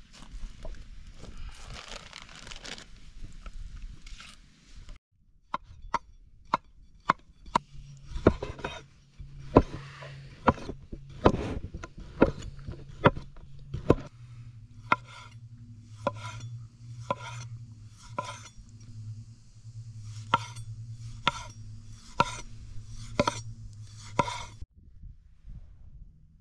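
A large knife chopping through sausage onto a wooden cutting board: a run of sharp knocks that settles to about one a second, each with a short ring, over a low steady hum. It follows a few seconds of rustling.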